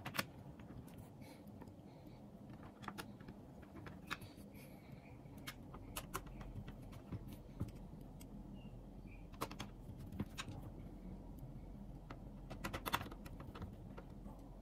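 Scattered light clicks and taps of a small screwdriver and screws on the plastic bottom cover of an MSI GP63 Leopard laptop as the cover screws are driven back in, with a quick cluster of clicks near the end.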